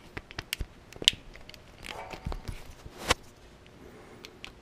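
Several sharp clicks and knocks of a trailer wiring harness's plastic push-pin clips being pressed into holes in a Jeep's steel frame and handled, the loudest about a second in and again after three seconds.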